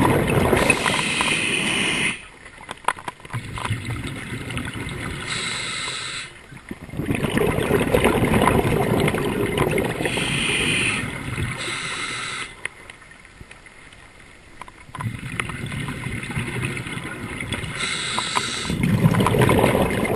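Scuba diver breathing through a regulator: long bubbling exhalations alternating with short hissing inhalations, in a slow cycle of about three breaths with quieter pauses between them.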